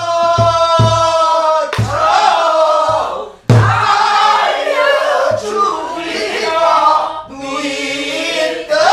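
A woman singing pansori in full voice, a long held note sliding downward at the start, with her own strokes on a buk barrel drum: deep thumps and a few sharp knocks. The voice and drum drop out briefly a little past three seconds in, then come back together on a drum stroke.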